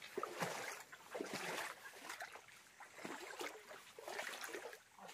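Footsteps wading through a shallow stream, the water sloshing and splashing with each stride.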